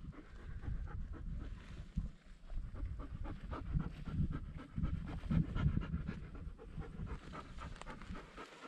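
A hound panting close by, in quick, irregular breaths.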